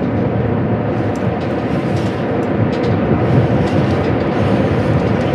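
Steady rumbling of a fishing boat's motor running as the boat moves, mixed with rushing water and wind noise.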